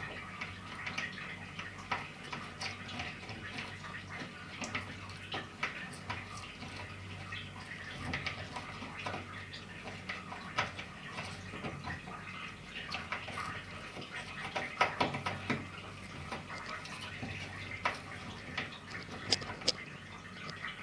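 Water splashing and dripping, with many small clicks and taps, as a front-load washing machine's water-inlet filter is rinsed clean.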